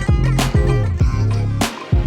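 Background music with a steady beat, a heavy bass line and drum hits about twice a second; the bass drops out briefly near the end.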